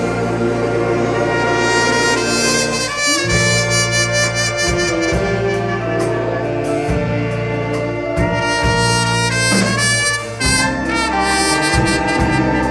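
Church wind orchestra playing a hymn arrangement: trumpets, trombones and saxophones sounding held chords and a melody over a steady bass, with percussion strikes keeping time.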